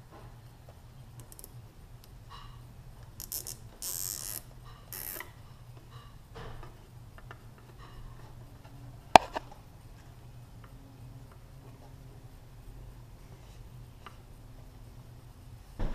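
A few short ratcheting zips of plastic zip ties being pulled, about three to five seconds in, then a single sharp click about nine seconds in.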